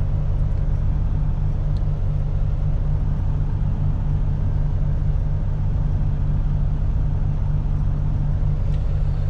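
Tractor-trailer's diesel engine running steadily as the truck drives along, a steady low drone.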